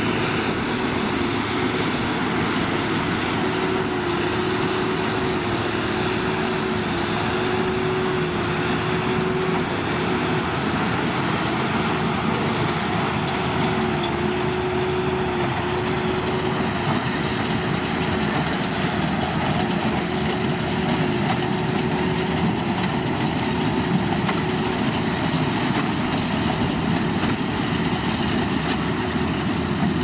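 Tractors (Deutz-Fahr Agrotron and New Holland TM155) running under load as they pull Massey Ferguson 185 square balers through barley straw. There is a steady engine and machinery drone with a constant whining tone that dips briefly now and then.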